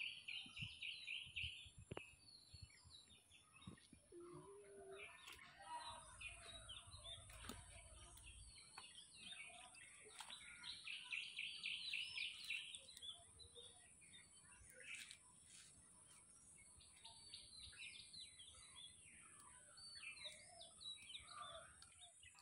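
Faint birdsong: songbirds give quick runs of repeated chirps several times, with scattered single calls in between.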